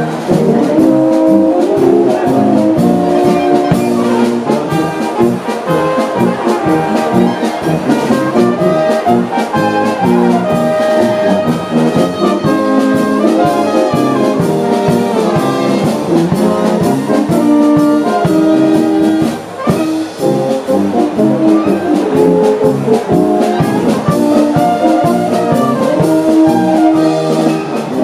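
Bavarian wind band playing live, brass leading with clarinets, with a short break in the sound about two-thirds of the way through.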